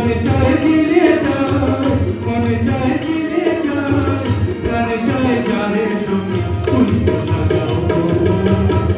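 Background music: a song with a sung vocal line over drum percussion.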